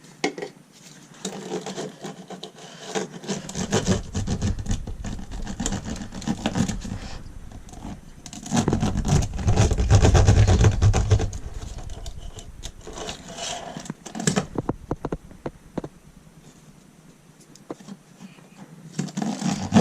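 Rubbing and scraping of bitumen sound-deadening mat being handled and pressed down onto a car floor, with scattered clicks and a heavier stretch of rubbing about halfway through.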